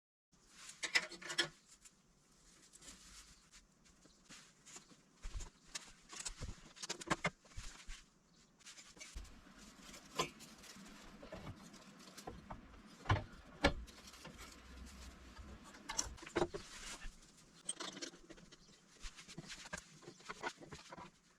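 Handling noises: irregular light knocks, clicks and rustling as objects are moved and set down, with sharper knocks about a second in and again about thirteen and sixteen seconds in.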